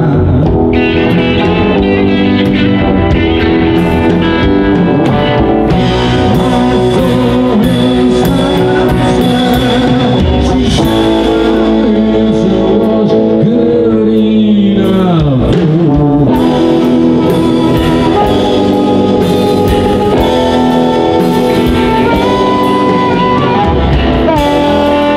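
Live blues-style band playing: amplified harmonica blown into a cupped microphone leads over electric guitars, upright bass and drums. A long note bends down in pitch about halfway through.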